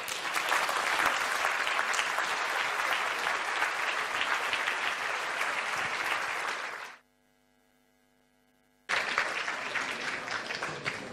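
A large seated audience applauding. The clapping cuts off abruptly for about two seconds, leaving only a faint steady hum, then resumes and tapers off near the end.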